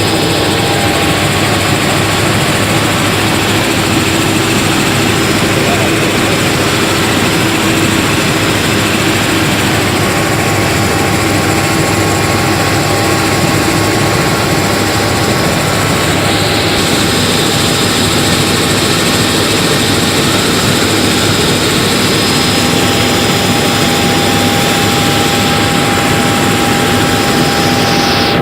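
Helicopter in flight, heard from on board: a loud, steady drone of engine and rotors with a few constant tones running through it.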